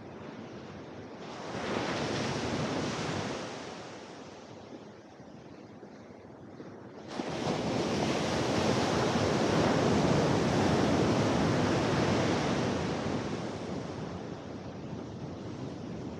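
Surf breaking on a sandy beach. One wave crashes about a second in and dies away. A bigger one breaks suddenly about seven seconds in and stays loud for several seconds before washing out.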